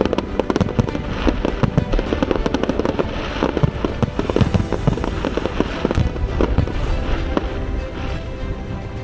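Aerial fireworks going off in a dense barrage: many bangs and crackles in quick succession, thickest in the middle, with music playing underneath.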